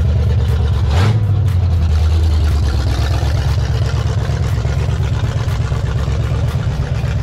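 A car engine running loudly, with a short rev about a second in, then running steadily.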